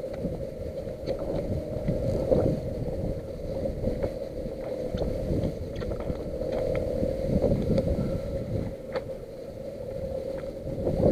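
Wind buffeting the microphone over choppy water lapping against a fishing kayak's hull, with a steady low rumble and a few small clicks and knocks scattered through.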